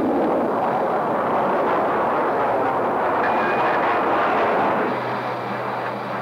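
Steady roar of a Boeing 727's three rear-mounted jet engines as the jetliner rolls out on the runway after landing. About five seconds in it drops to a quieter, steadier hum.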